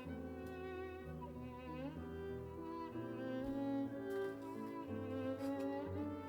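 Background music played on bowed strings, violin and cello, in slow held notes over a sustained bass line.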